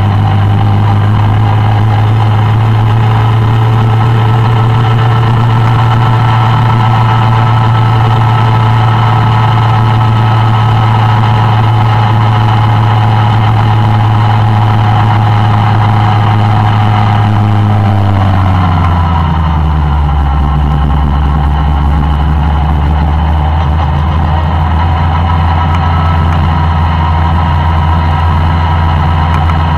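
Suzuki Bandit 1200's inline-four engine running steadily under the rider. About two-thirds of the way through, its pitch falls smoothly over a second or so and settles at a lower steady note as engine speed drops.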